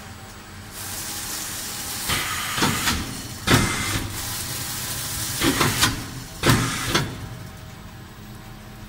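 FP6000CS automatic film-wrapping machine running: a steady hiss from about a second in until near the end, with several short, loud hissing strokes in the middle seconds.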